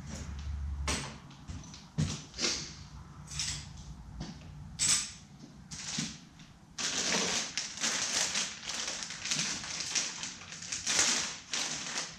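Plastic packaging crinkling and rustling as a light kit is unpacked, with a few sharp knocks and taps in the first half. From about seven seconds in, a plastic bag crinkles continuously as it is handled.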